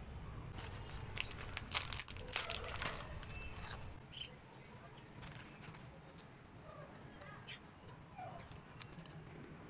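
Plastic and foil snack wrapper crinkling as it is handled and opened, with a dense run of crackles in the first three seconds, then only occasional soft rustles.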